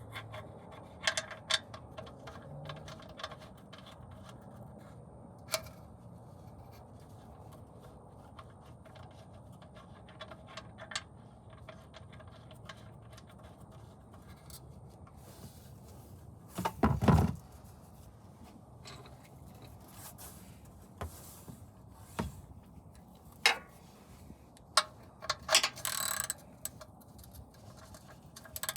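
Scattered clicks, light scrapes and knocks of hand tools and metal parts being handled during drain-bolt work on an oil change, with one louder knock about two-thirds of the way through and a cluster of clicks near the end.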